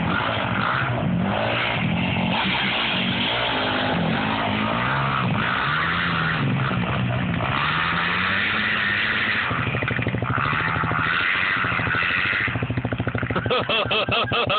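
Yamaha YZ250F dirt bike's four-stroke single-cylinder engine, revving up and down repeatedly as it is ridden.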